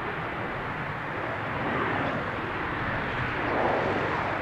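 Saudia Boeing 787 Dreamliner on final approach, its jet engines heard as a steady distant rushing noise that swells slightly a couple of times.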